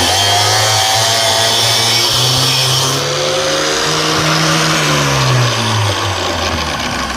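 Angle grinder with a cut-off disc cutting metal: the motor runs loudly with a high hiss of the disc in the metal, its pitch rising and then falling back about midway as the load changes, and the sound eases off near the end.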